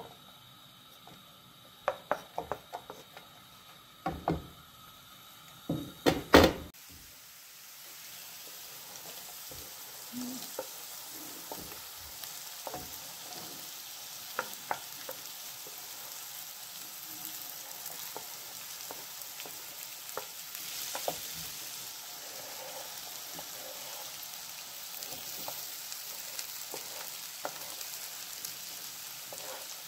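Diced vegetables being scraped with a wooden spatula off a wooden cutting board into a frying pan: a few sharp knocks and clatters in the first six seconds, then steady sizzling in hot oil from about seven seconds in, with occasional knocks of the spatula.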